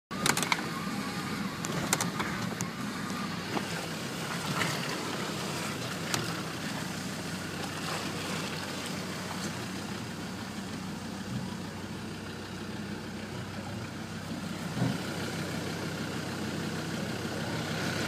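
Four-wheel-drive vehicle's engine running at low revs as it crawls through a rocky river ford. Occasional sharp knocks come as the wheels hit rocks.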